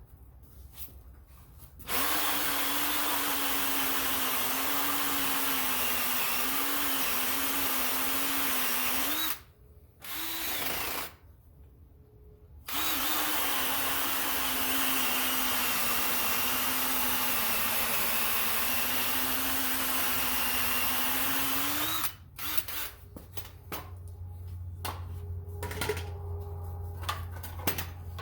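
Ryobi drill with a hole saw cutting through clamped wooden boards: two long steady runs of the motor with a brief burst between them, its pitch wavering slightly as it bites. After the drill stops near the end come scattered clicks and knocks of handling.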